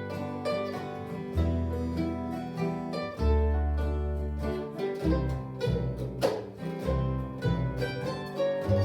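Bluegrass-style waltz played on a 1923 Gibson Loar F-5 mandolin carrying the melody, with acoustic guitar rhythm and bass notes underneath.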